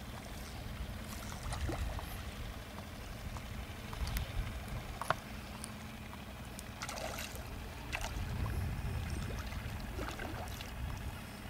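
Outdoor wind rumbling on the microphone at the water's edge, swelling and easing, with a few small sharp clicks and faint water sounds.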